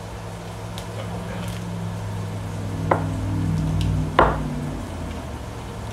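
Chef's knife slicing thin pieces off a block of cheddar cheese and knocking down onto a plastic cutting board, with faint clicks early on and two sharper knocks about three and four seconds in, the second the loudest. A low steady hum runs underneath.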